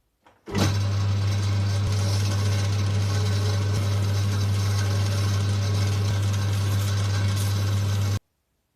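A steady electric machine hum with a strong low drone, switching on about half a second in and cutting off abruptly near the end.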